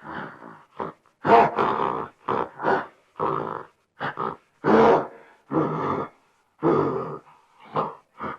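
An angry animal grunting and growling in a rapid, irregular string of short, harsh bursts, a few of them drawn out longer.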